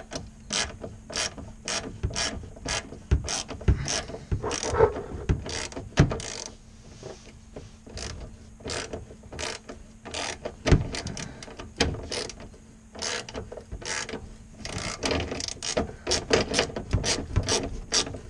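Hand ratchet wrench clicking in quick runs as the 12 mm bolts holding the charcoal canister box are loosened, with a couple of short pauses between runs.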